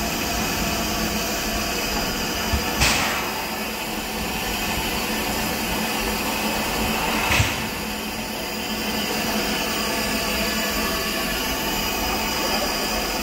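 Steam hissing steadily from a Shay geared steam locomotive, with two brief louder bursts about three and seven seconds in.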